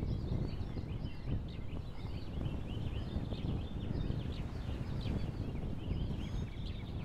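Many birds calling at once, a continuous chatter of short high chirping calls, over wind rumbling on the microphone.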